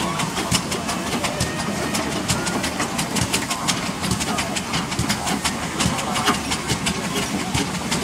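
Steam road roller running as it creeps over loose gravel, with a steady mechanical rumble and frequent sharp crackling clicks throughout.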